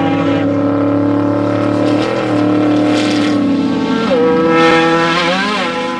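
Off-road race vehicle engine running hard at high revs, with a steady pitch that drops about four seconds in and wavers near the end as the revs change.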